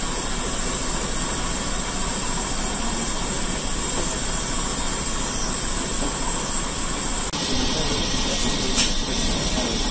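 Steady hiss and rush of steam at the open firebox of a steam yacht's boiler; a higher, louder hiss cuts in about seven seconds in.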